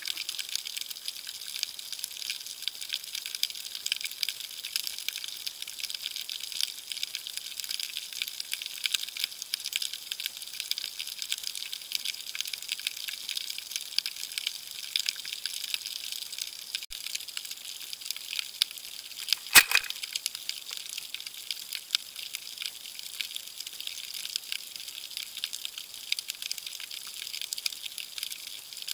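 Underwater ambience in shallow surf: a steady, dense crackle of fine clicks, with one sharper, louder click about two-thirds of the way in.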